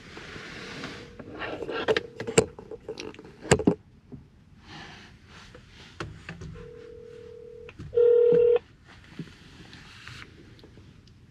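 Mobile phone on speaker placing a call: a few handling clicks, then the ringback tone, a steady low beep heard twice, the second louder and buzzier.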